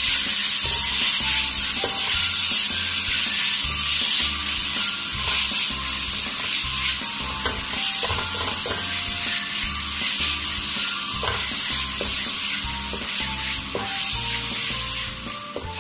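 Chopped onion, tomato and green chillies frying in hot oil in a metal pan with a steady sizzle, while a plastic spatula stirs and scrapes them around the pan.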